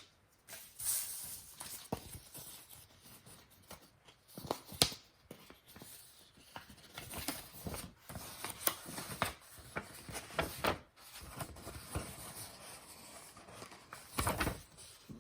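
Unboxing handling noise: paper leaflets and box packaging being handled, with irregular rustles, taps and clicks.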